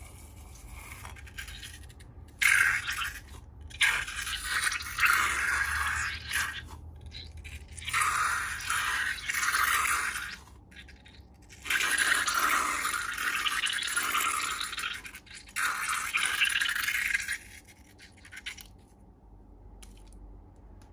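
Slime being stirred and squished, a wet scraping noise in several bursts of a few seconds each that stops near the end.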